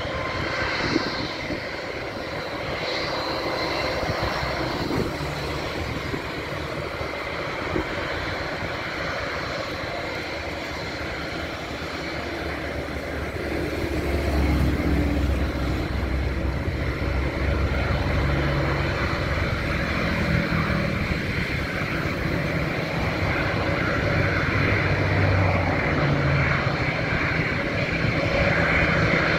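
Jet airliner engines running at taxi power: a steady whine over a broad hum, with a low rumble that grows louder about halfway through.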